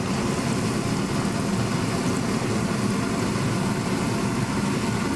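Jamaican fried dumplings frying in medium-hot oil: a steady sizzle over a steady low hum.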